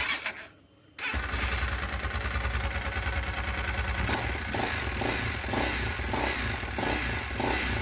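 Single-cylinder four-stroke 166FMM motorcycle engine running steadily, coming in abruptly about a second in. Its crankshaft and piston-cylinder group are newly replaced, and the knock is gone.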